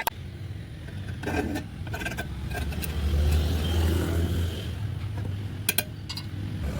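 A low engine rumble that swells about three seconds in and then eases, with a few short knocks scattered through it.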